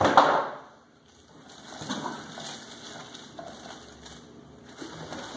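Plastic wrapping crinkling and rustling as plastic-wrapped cookware is handled inside a cardboard box, with a loud burst of rustle right at the start and lighter, irregular crinkling after.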